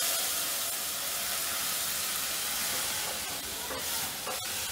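Tomato pulp and water poured into hot oil tempering in a steel pot, sizzling with a steady hiss that slowly dies down as the liquid goes in, with a couple of faint ticks near the end.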